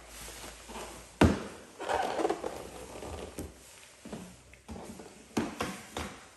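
Rigid cardboard packaging boxes being handled and set down on a table: a sharp knock about a second in, then rustling and a few lighter knocks.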